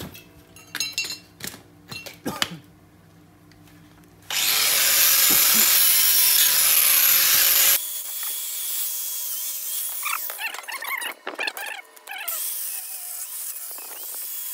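Electric angle grinder cutting a bicycle frame's metal tube: a few knocks first, then a loud hissing cut lasting about three and a half seconds that starts and stops suddenly, after which the grinder keeps running more quietly with intermittent scraping.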